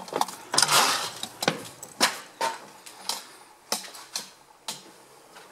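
Footsteps walking along a hallway, sharp steps about two a second, with the front door being opened near the start.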